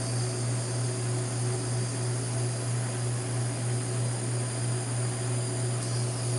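Handheld gas torch burning with a steady hiss as its blue flame heats a copper wire connector to melt solder into it, over a strong steady low hum.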